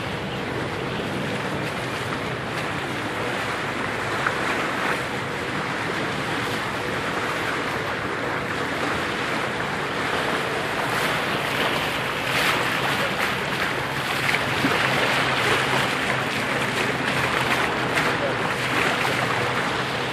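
Sea water rushing and splashing past the bow of a moving boat, with a steady low motor hum and wind on the microphone. The water noise grows louder and splashier about halfway through.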